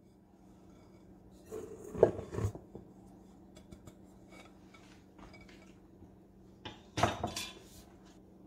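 Kitchenware clattering against a stainless steel mixing bowl on a stone counter, in two short bursts of knocks about five seconds apart.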